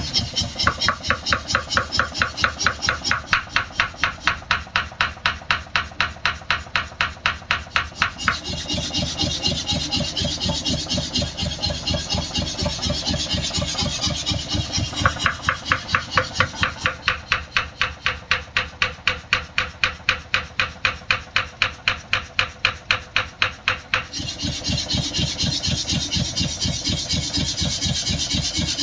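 A 15 kg mechanical forging power hammer running, its ram striking in fast, even blows at about four a second in two spells. Between the spells the machine runs on without the sharp blows.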